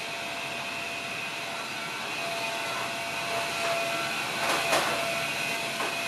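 Steady mechanical whine over a hiss, like a motor or fan running, with a brief louder noisy burst about four and a half seconds in.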